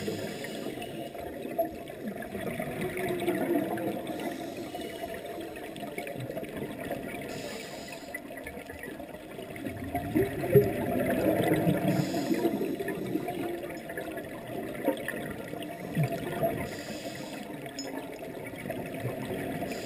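Underwater scuba breathing: the bubbling gurgle of exhaled regulator bubbles, surging in waves, with a short hiss of inhalation every few seconds.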